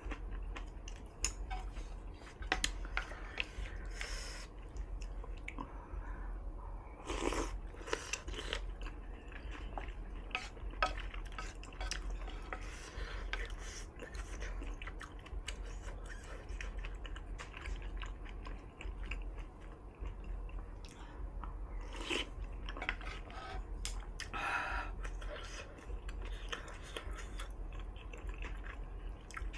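Close-miked chewing of hot pot tofu and vermicelli noodles, with frequent short wet clicks and occasional clinks of utensils against the dish. There are a few louder bursts, about seven seconds in and again later.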